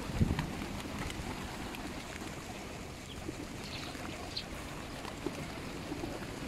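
Wind buffeting the microphone as a steady low rumble over a flock of feral pigeons, with a short flurry of wing flaps just after the start and a few faint high chirps about four seconds in.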